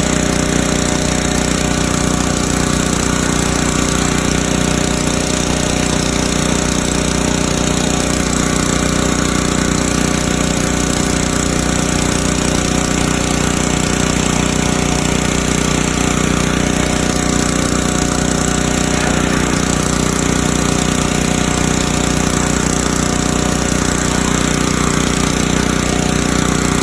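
Pressure washer's small engine and pump running steadily under load, with the hiss of the water spray over it; the drone holds one even pitch throughout.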